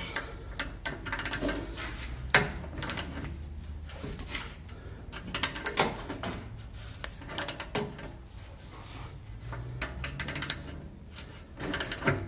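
Hand wrench clicking and clanking on a stubborn, seized bolt under a vehicle, in irregular bunches of sharp metal clicks, with one louder knock a couple of seconds in, over a steady low hum.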